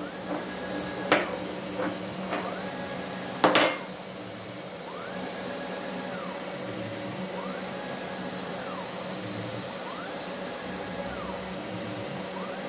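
Mini 4-axis CNC router milling a round wood blank: the spindle motor runs steadily while the axis stepper motors whine, rising, holding and falling in pitch about every two and a half seconds as the Y axis moves and the A axis turns the workpiece. A few sharp knocks sound in the first four seconds, the loudest about three and a half seconds in.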